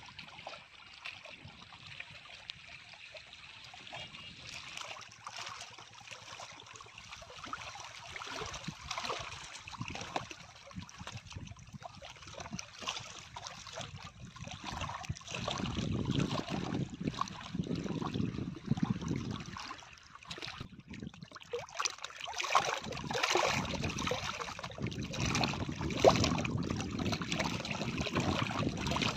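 River water lapping and splashing against rocks at the bank, an uneven wash of small waves that grows louder about halfway through.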